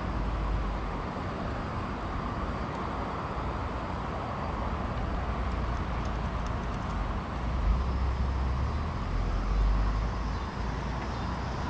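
Steady hum of road traffic from a nearby street intersection, with a low rumble that swells about two-thirds of the way through as a vehicle passes.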